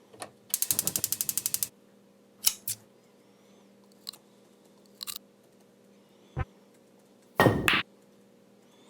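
Short household sound effects previewed one after another from a phone video-editing app's library: a quick run of about a dozen clicks, then several single knocks and clicks, and a longer, louder burst near the end.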